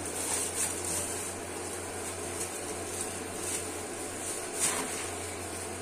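Steady low hum with a faint high hiss, a few soft ticks, and one short sharp click about four and a half seconds in.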